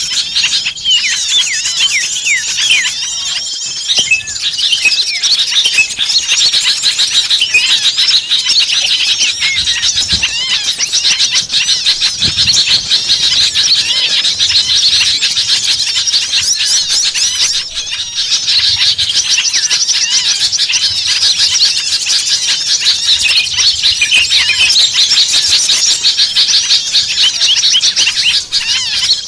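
Dense chorus of many small birds chirping and squealing agitatedly all at once, a continuous run of rapid high, squeaky notes. It is a bird-lure recording of noisy, alarmed small birds, played to draw other small birds in.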